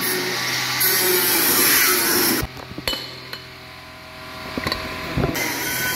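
Handheld angle grinder cutting steel on a combine harvester's cutter bar, a steady grinding noise that stops abruptly about two and a half seconds in. A few sharp metallic clinks and knocks from hand work on a metal hub follow, and a steady rushing noise returns near the end.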